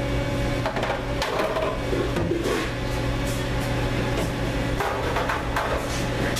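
Steady hum of commercial kitchen machinery, several even tones held throughout, with a few light knocks and clatters.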